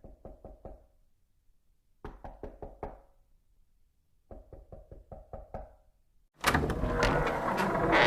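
Knocking in three rounds of about five or six quick, evenly spaced knocks, with short pauses between the rounds. About six seconds in, a much louder, dense burst of noise cuts in and drowns them out.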